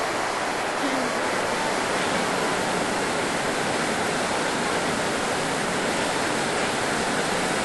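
Waterfall in heavy flow: a steady rush of white water pouring over rock, with no let-up.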